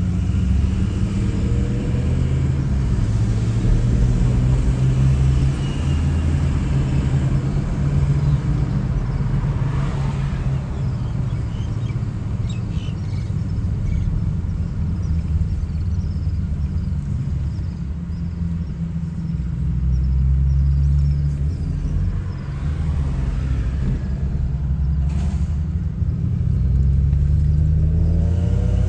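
Car driving at road speed: a steady low rumble of engine and road noise.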